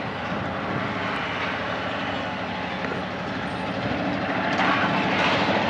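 Diesel locomotive engine running under power as the train approaches, a steady rumbling drone that grows louder near the end.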